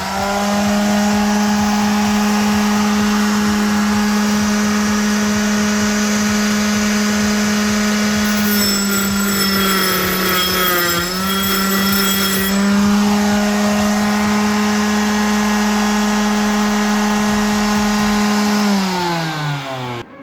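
Small electric motor spinning up to speed and running with a steady whine. About halfway through its pitch sags and wavers as if briefly loaded, then it recovers. Near the end it winds down as the power is cut.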